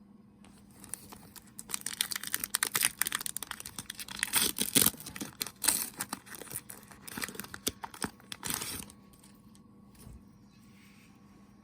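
Pokémon card packaging being torn open by hand, a crinkling, crackling plastic or foil wrapper that tears in quick rips, running from about a second in until near 9 s and then stopping.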